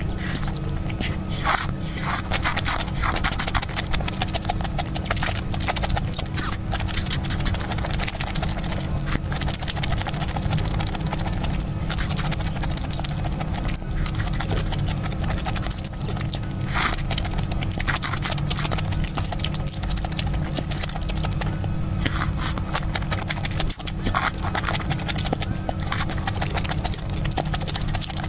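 Close-miked eating sounds, chewing with frequent short clicks and taps, over steady background music.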